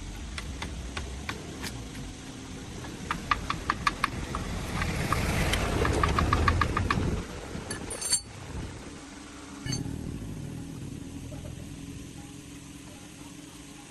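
Diesel tractor engine running with a low rumble that grows louder about five to seven seconds in, with quick runs of metallic clicks, two sharp clicks after that, and then a steadier, quieter hum.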